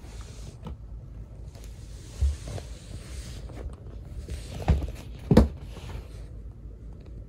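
Close rustling with a few soft, low thumps, the loudest a little past the middle.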